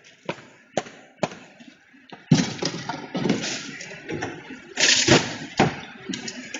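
Trash being handled: a few sharp knocks in the first second or so, then, about two seconds in, a run of rustling and thuds, loudest about five seconds in, with another sharp knock just after.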